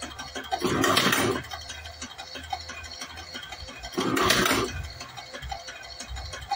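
Semi-automatic electric cigarette-rolling machine running through its fill cycle: a noisy burst of under a second, about every three and a half seconds, twice here, over a low steady hum and small clicks.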